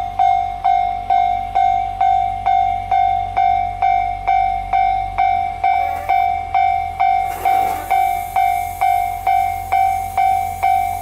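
Japanese level-crossing warning bell clanging steadily, about two strokes a second on one high ringing tone. About seven seconds in a burst of hissing comes up, and a steady hiss carries on under the bell after it.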